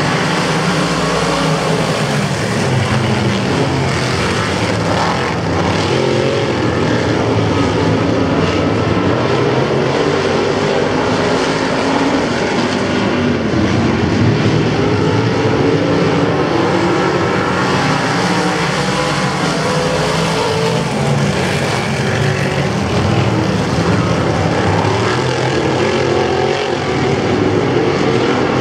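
A pack of winged sprint cars racing on a dirt oval: several engines at high revs together, their overlapping pitches rising and falling as the cars lift and accelerate through the turns.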